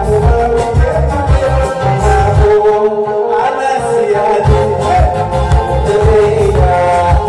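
Live Harari band music: electric guitar and a melody line over a heavy bass beat, with singing. The beat drops out for about two seconds midway, then comes back in.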